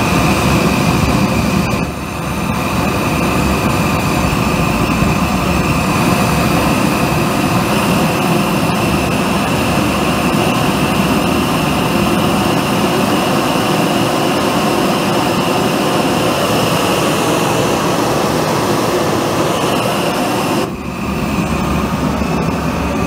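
Propane forge burner running steadily, fitted with a high-flow waste-oil nozzle that gives a big, lazy flame at low air velocity. A steady roar with a faint high whine over it, dipping briefly about two seconds in and again near the end.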